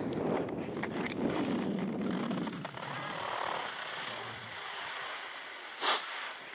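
Skis sliding and scraping on packed snow as the skier slows to a stop, with some wind buffeting the microphone. The sliding dies away after about two and a half seconds, and a short sharp noise comes about six seconds in.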